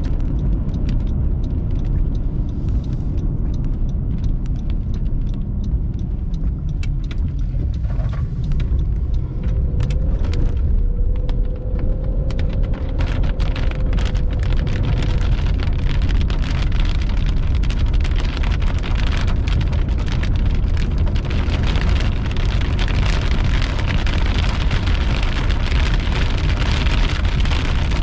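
Rain falling on a car, the drops getting denser and heavier from about halfway through, over a steady low rumble.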